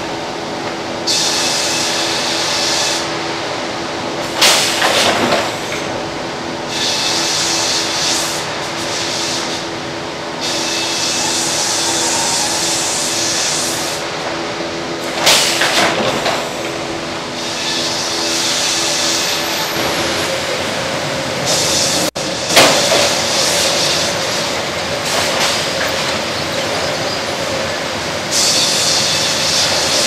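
Sawmill band headrig and log carriage at work: a steady machinery drone with several held tones, broken by repeated spells of high hissing a few seconds long. A few heavy knocks come about five, fifteen and twenty-two seconds in.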